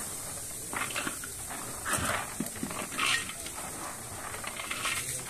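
Chickpeas poured and dropped by the handful from a steel basin into a large pot, pattering and clattering in about four short bursts over a steady hiss.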